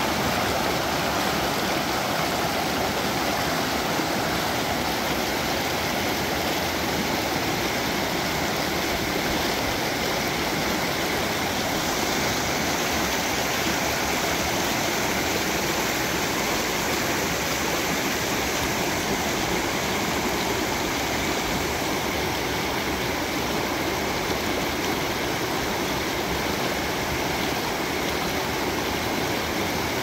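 Water of a rushing spring flowing steadily.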